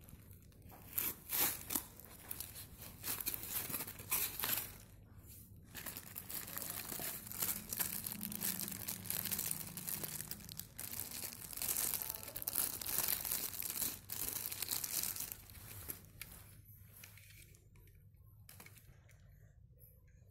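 Crinkling and rustling of plastic wrapping and bubble wrap, with the rub of a polystyrene foam box, as a toy car is unpacked by hand. The handling noise is irregular and goes much quieter in the last few seconds.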